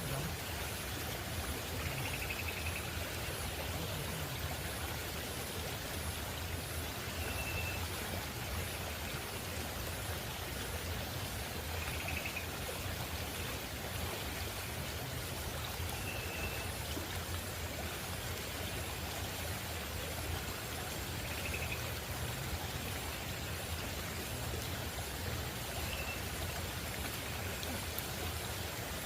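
Steady rushing of a flowing river. A short, high call repeats every four to five seconds over it, with a faint, fast, very high pulsing.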